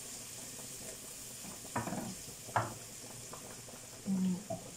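Mushrooms and onion frying in oil and butter in a frying pan, with a steady sizzle, while a utensil stirs them and knocks sharply against the pan twice midway. A short low hum near the end.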